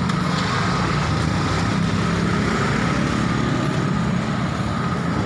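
Steady roadside traffic noise, with a motor vehicle engine running close by.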